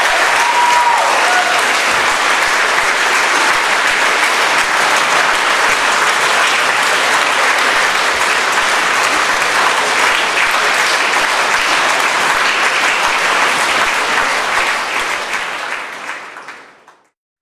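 Concert hall audience applauding steadily, fading out near the end.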